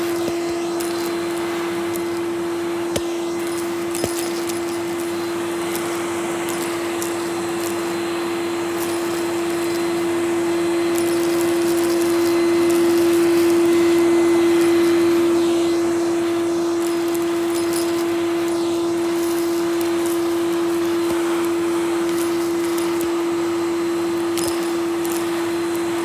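Numatic Henry canister vacuum cleaner running steadily with a strong motor hum and rushing suction through the hose nozzle as it picks up crushed crisps from carpet. The suction swells louder about halfway through. A couple of small sharp clicks come a few seconds in.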